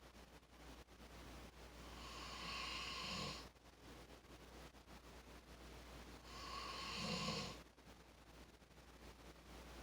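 A person snoring in sleep: two slow, breathy snores about four and a half seconds apart, each ending in a short low rumble.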